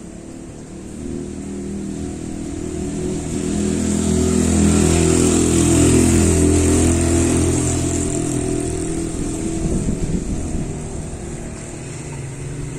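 A vehicle engine passing close by: it grows louder for about five seconds, then fades away. Behind it runs a steady hiss of strong wind in the trees.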